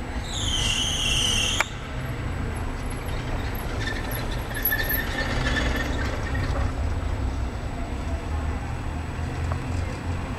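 Outdoor street ambience with a steady low rumble. Just after the start, a loud, wavering high-pitched squeal lasts about a second and a half and cuts off sharply; a fainter high tone follows a few seconds later.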